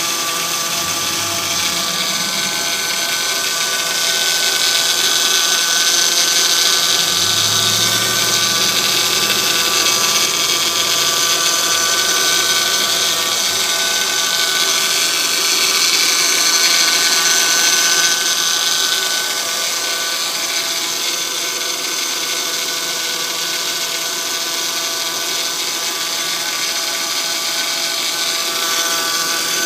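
2005 Honda Accord 3.0-litre V6 engine running cold just after start-up, with a steady, even-pitched mechanical noise and a high hiss, a little louder for a stretch in the middle. It is a cold-start noise: it goes away once the engine reaches normal temperature.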